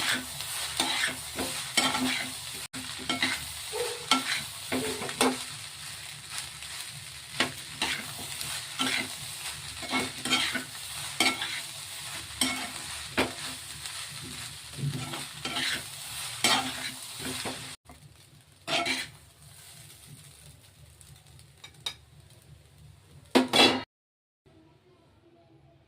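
Egg fried rice sizzling in a pan while a utensil stirs and scrapes it, one stroke every half second to a second. The sizzle drops away about 18 seconds in, leaving a few louder strokes, and the sound cuts off near the end.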